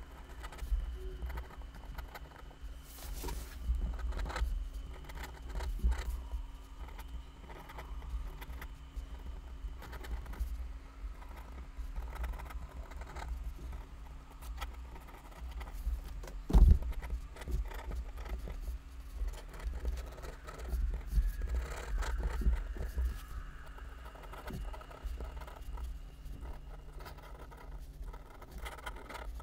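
Pen nib scratching across paper in many quick sketching strokes, with light taps and a low rumble from the desk underneath. One sharp knock stands out a little past the middle.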